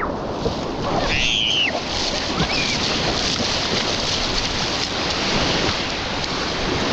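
Ocean surf washing on the shore with wind buffeting the microphone, a steady rushing noise; a short high cry rises and falls about a second in.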